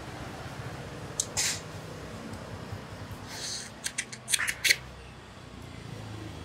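Eating a cooked sea crab by hand and mouth: a couple of short clicks about a second in, then a quick run of sharp shell cracks and sucking sounds around four seconds in as the crab body is bitten.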